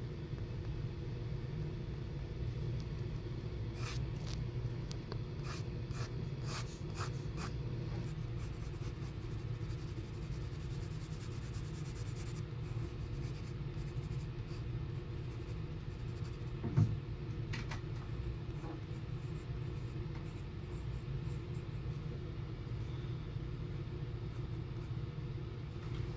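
Pencil strokes scratching on sketchbook paper, in short irregular bursts, over a steady low hum. A single soft thump sounds about two-thirds of the way through.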